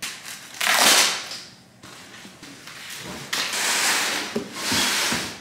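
Large cardboard shipping box being handled: its flaps and sides scraping and rustling in three long noisy bursts, the first the loudest.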